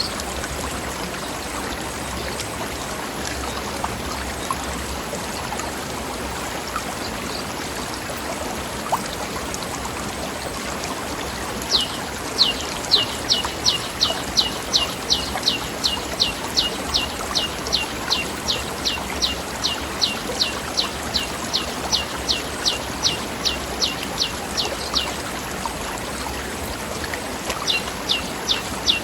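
River water running steadily over rocks, with a bird calling a long, rapid run of short high notes, each falling in pitch, about three a second, for some thirteen seconds from about the middle, starting again near the end.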